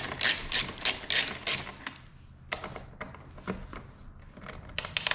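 Ratcheting screwdriver clicking as a screw is turned into a rivnut: a quick run of about five clicks a second for the first second and a half, then slower, scattered clicks.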